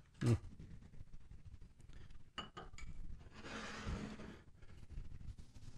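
White ceramic serving bowls and a plate clinking and scraping as they are handled and set down on a wooden counter, with one ringing clink about two and a half seconds in and a rough scrape around the four-second mark. A single sharp knock comes just after the start.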